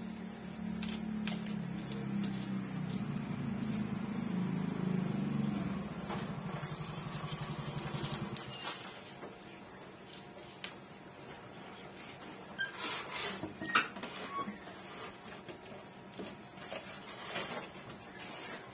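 Box cutter blade scraping and clicking against the bottom edge of a glass aquarium in a short cluster about two-thirds of the way through, with a few lighter scrapes later. A low steady rumble fills the first half.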